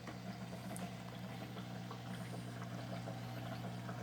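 Steady low electrical hum of a running appliance, with a few faint small clicks and rustles.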